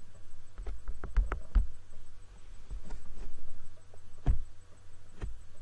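A few sharp knocks and clicks with dull thumps under them: a quick cluster of them about a second in, then single ones twice near the end, over a low steady hum.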